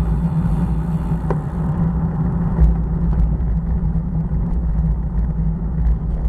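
Steady low rumble of wind and road vibration picked up by a bicycle-mounted camera while riding over cracked asphalt, with a few light clicks about a second and two and a half seconds in.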